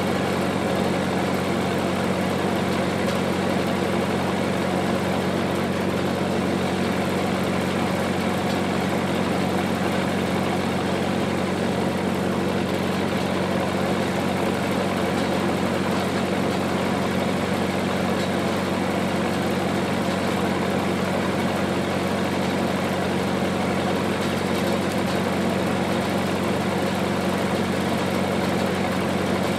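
Generator engine running at a steady, constant speed, an even hum that does not rise or fall.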